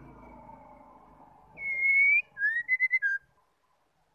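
White-rumped shama singing: one long clear whistled note about a second and a half in, then a rising note, a quick run of short notes and a lower closing note, all within about a second and a half.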